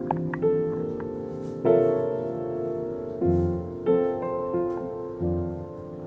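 Slow instrumental background music. Notes and chords are struck about once a second and left to ring.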